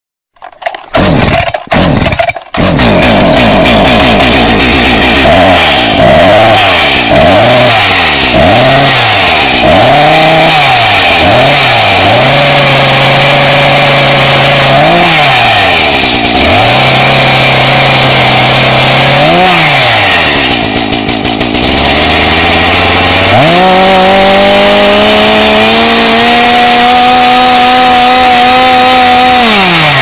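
Petrol chainsaw engine starting after a few short sputters, then blipping the throttle up and down over and over with short spells of idling. About three-quarters of the way through it revs up to a high, steady speed and holds there, then winds down at the very end.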